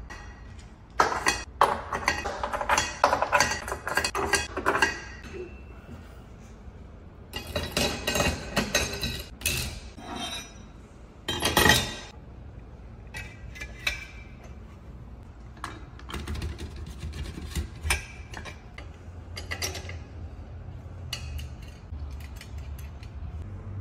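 Metal parts of a twin-disc clutch clinking and clattering as bolts are set into the flywheel and the clutch discs and plates are stacked onto it. The clatter comes in dense bursts in the first half, then thins to scattered single clicks.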